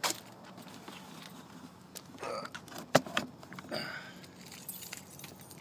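Handling noise from a nitro RC car as it is carried and set down on asphalt: light clicks and rattles of its chassis and parts, with one sharp knock about three seconds in as it touches the ground. Its engine is not running.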